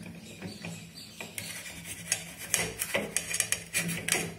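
Knife cutting limes on a stainless steel plate: a run of sharp knocks and clinks as the blade goes through the fruit and strikes the metal plate.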